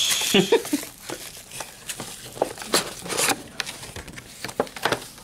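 Plastic shrink wrap crinkling and rustling as a sealed cardboard trading card box is unwrapped and its lid lifted open. It comes as irregular crackles and clicks, loudest in the first half second.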